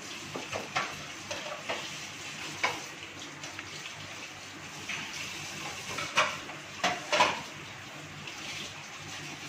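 Rolling pin rolling a ball of momo dough out thin on a stone countertop, with scattered light knocks and taps of the pin against the counter over a faint steady hiss.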